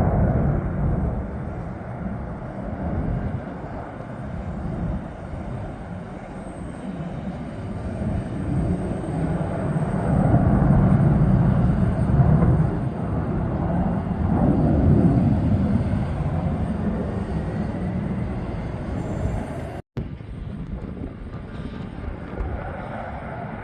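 F-15C Eagle fighter jets' twin turbofan engines in afterburner on takeoff: a continuous rumble that swells and fades as the jets pass and climb away. It cuts out for a moment about twenty seconds in.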